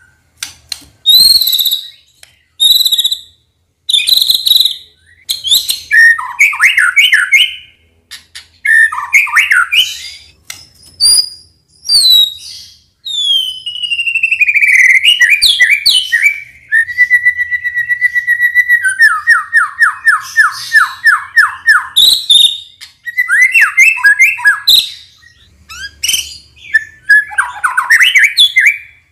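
White-rumped shama (murai batu) singing a loud, varied song of separate phrases: clear whistles, slurred gliding notes and trills with short pauses between them. About halfway through comes a long falling whistle, then a fast run of repeated notes.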